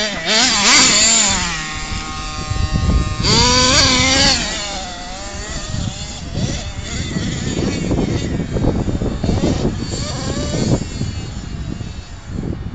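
Nitro glow engine of a CEN Genesis radio-controlled monster truck revving up and down in bursts, its pitch rising and falling. The loudest revs come in the first two seconds and again about three to four seconds in, then the engine sounds fainter.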